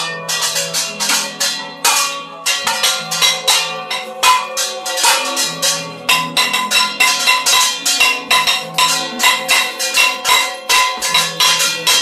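Metal pot lids clashed together and pans beaten with a spoon: fast, continuous clanging at about five strikes a second, each strike ringing. This is New Year's Eve noisemaking at midnight.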